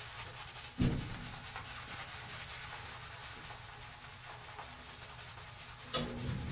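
Boar-bristle shaving brush (Semogue 830) rubbed over a lathered face: a faint swishing of wet bristles on skin during face lathering, with a soft thump about a second in.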